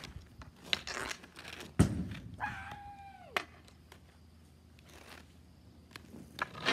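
A hockey stick clicking on a ball and inline skate wheels rolling on concrete, then one loud hard thunk about two seconds in as the shot is struck. A short cry falling in pitch follows.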